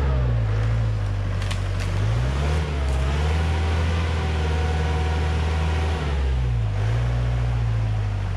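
Old Mahindra 4x4 jeep's engine running hard under load and revving up and back down about three times, as the jeep tries to climb out with a rear wheel dropped into a hole.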